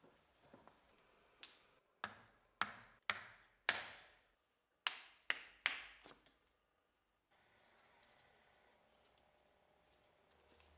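Eight sharp knocks in two runs of four, about half a second apart, as the rotten wooden handle stub is knocked out of the eye of an old rusty axe head clamped in a bench vise.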